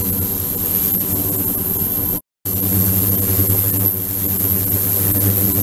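Ultrasonic tank system running: a steady buzz and hum of even low tones under a hiss, with a constant high whine. The sound cuts out completely for a moment about two seconds in, then carries on as before.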